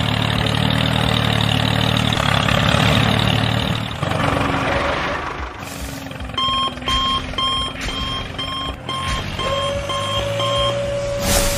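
Dubbed truck sound effects: a truck engine running for the first few seconds, then a reversing alarm beeping about twice a second, with a short burst of noise near the end as the dump bed tips.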